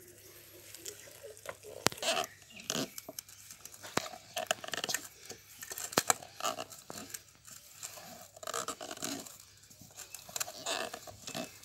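Wooden stirring sticks working thick ragi kali (finger millet dough) in a metal pot: irregular scraping and mashing, with a few sharp knocks of wood against the pot.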